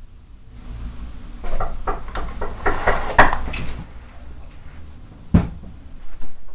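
Handling noise in a wood-panelled room: a run of knocks and clunks over a couple of seconds as a small button accordion is set down on a wooden floor and someone gets up and walks across it, then one sharp knock at a wooden cupboard about five seconds in.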